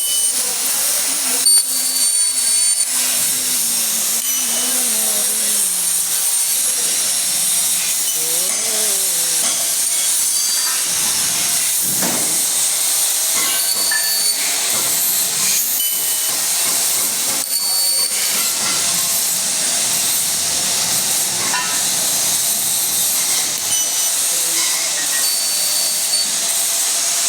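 CNC fiber laser cutting machine at work: a steady loud hiss of gas jetting from the cutting head, with whines rising and falling in pitch as the machine moves, mostly in the first ten seconds.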